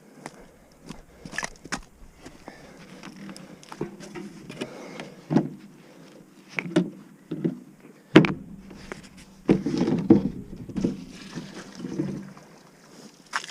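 Irregular knocks and clunks, some sharp and some dull, the loudest about eight seconds in, with a busier stretch of clattering around ten seconds.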